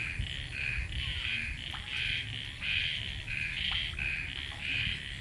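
A repeating animal call: short chirps alternating between two pitches, about two a second, keeping up an even rhythm over a low rumble.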